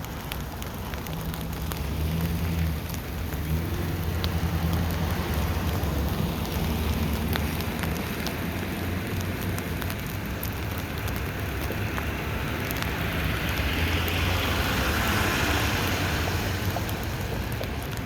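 Rain falling steadily on a tent canopy, an even patter with a low rumble beneath it. About three-quarters of the way through, a hiss swells and then fades.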